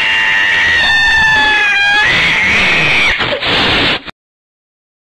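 A domestic cat yowling in one long drawn-out caterwaul, its pitch wavering and then dropping, ending about three seconds in.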